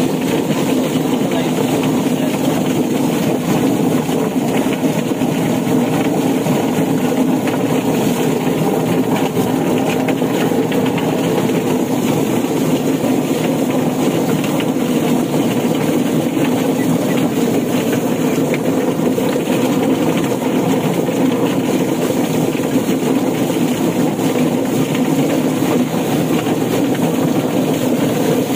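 Drum-type chicken plucker running steadily: its motor drives the spinning tub, churning scalded broiler chickens against the rubber plucking fingers, with water splashing as it is poured in. A loud, even hum with no let-up.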